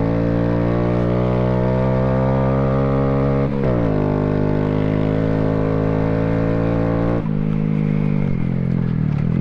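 Honda Grom's single-cylinder four-stroke engine running under way, its pitch climbing slowly, then dropping suddenly about three and a half seconds in and climbing again, with another drop about seven seconds in.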